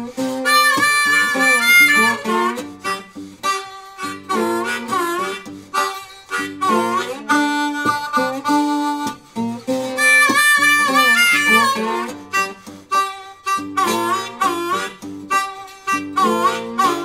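Blues music led by a harmonica playing bending, wavering notes over acoustic guitar.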